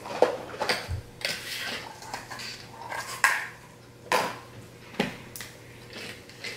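Small clear plastic containers and lids clattering and clicking together as they are picked through and handled, with a few sharper knocks spread irregularly.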